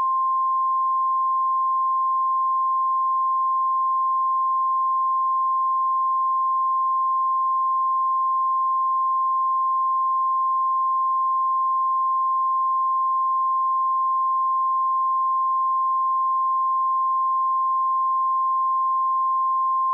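Emergency Alert System attention tone for a tornado warning: one loud, steady, high-pitched tone held without a break.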